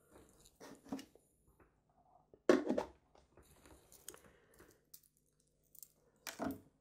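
Light knocks and scrapes from handling a watch case pressure tester, with its dial-gauge stand and glass bell-jar dome. There are two sharper knocks, one about two and a half seconds in and one near the end.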